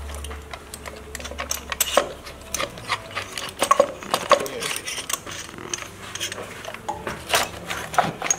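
Irregular metallic clicks and clinks of hand tools and the threaded pullers of a fuel-injector puller plate, being worked to draw the injectors out of a BMW B48 cylinder head. A low hum underneath stops about two and a half seconds in.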